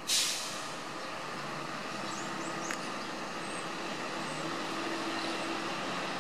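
Rail maintenance trolley (dresina) approaching slowly along the track, its engine a faint steady hum that grows a little louder under background noise. A brief sharp hiss at the very start.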